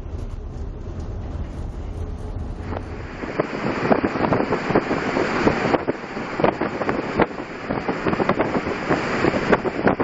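Gale-force wind buffeting the microphone on a ship's deck in a storm at sea, with waves breaking against the hull. For the first three seconds or so there is only a steady low rumble; then the louder gusty wind takes over, full of crackling blasts on the microphone.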